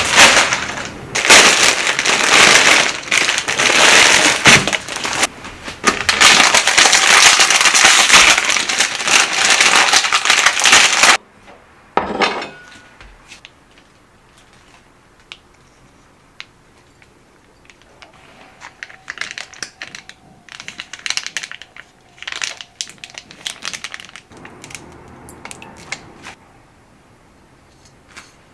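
Plastic wrapper of a Maruchan Seimen instant-noodle packet crinkling loudly as it is handled, stopping abruptly about eleven seconds in. After that only faint, scattered clicks and taps.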